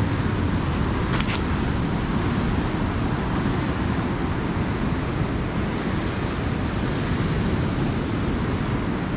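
Steady noise of heavy surf breaking on a beach, mixed with wind on the microphone that gives it a deep, even rumble.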